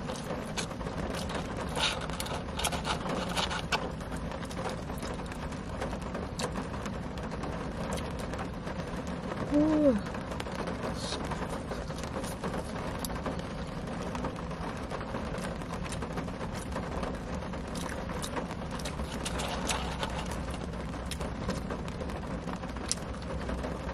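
Steady rain on a parked car, heard from inside the cabin, with close-up eating sounds of fries being chewed and handled, many small clicks and crackles. A brief hummed voice sound about ten seconds in.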